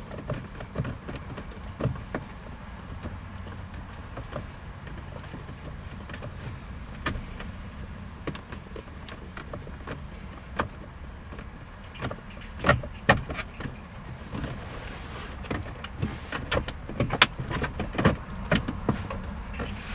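Scattered sharp clicks and knocks of small car parts and tools being handled, coming thicker in the second half, over a steady low rumble.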